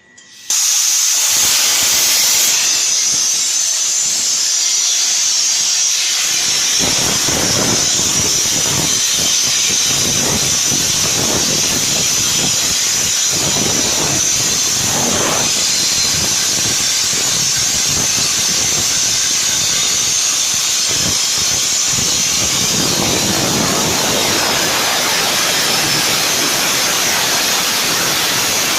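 Tesla Weld CUT160 plasma cutter firing and cutting 25 mm steel plate: a loud, steady hiss that starts abruptly about half a second in and holds even.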